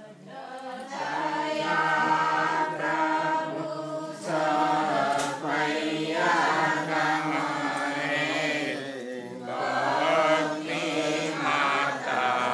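A group of voices singing a chant in unison, a slow melodic line that carries on throughout with short breaks between phrases.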